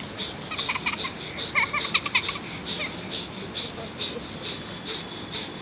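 Rapid, forceful exhalations through the nose, about two a second, pumping out water left in the nose after a nasal rinse.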